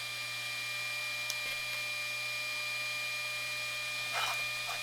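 Cobra CPI2575 power inverter running under a light-bulb load: its small high-speed cooling fan, a low steady hum, and steady high-pitched tones from the incandescent bulbs singing on the inverter's modified sine output, a sign that its power is less clean than many others. A brief rustle about four seconds in.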